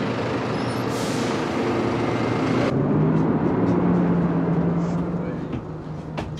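City bus running: a steady engine and road rumble with a low hum, turning duller about three seconds in, as heard from inside the cabin.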